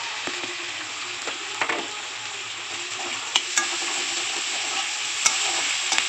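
Chopped onions sizzling in hot mustard oil in a kadai, stirred with a metal spatula that scrapes and clicks against the pan a few times.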